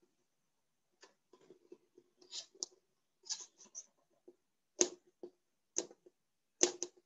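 Marker drawing on a whiteboard: a string of short, irregular scratchy strokes and taps starting about a second in, with two sharper knocks in the second half.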